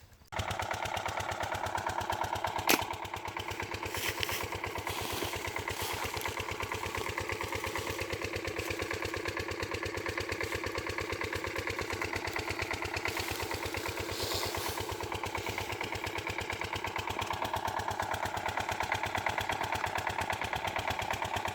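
A small engine running steadily with a fast even pulse. It starts abruptly just after the beginning, and there is a single sharp click a few seconds in.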